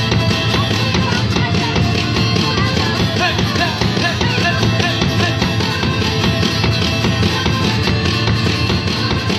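Live band playing an instrumental break between sung verses of a French chanson-rock song, with a steady driving rhythm.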